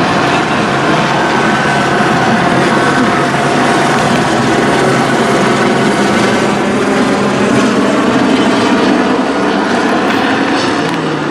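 Loud, steady engine drone with a few steady tones running through it, easing slightly near the end.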